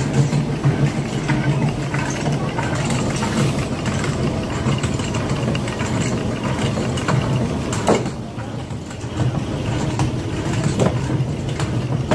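Electrically driven stone grist mill running, its millstones grinding wheat fed from a wooden hopper: a steady low hum and rumble with scattered light knocks.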